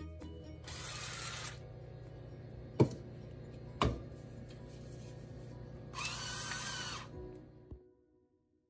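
Rechargeable electric salt and pepper grinder motor whirring twice, about a second each, over background music, with two sharp clicks in between. The music fades out near the end.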